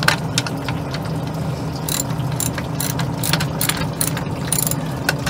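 Caravan corner steady being wound with a hand crank: irregular metallic clicks and rattles from the screw mechanism, about two or three a second, over a steady low hum.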